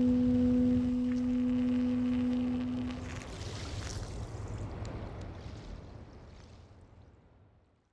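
A single steady, clear tone is held over a low rumble and stops about three seconds in. The rumble then fades away to silence near the end.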